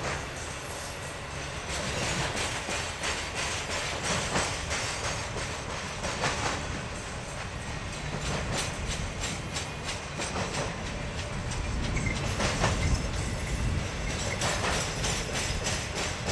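Triple Crown RoadRailer freight train rolling past, its steel wheels clacking over rail joints in a steady run of sharp clicks over a continuous rumble.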